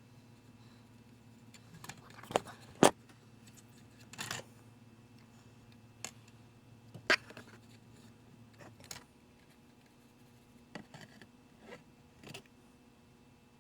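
Scattered sharp clicks and light taps of tools and metal parts handled while soldering a coaxial connector onto a TV tuner board, the loudest two just under three seconds in and about seven seconds in. A low steady hum underneath stops about nine seconds in.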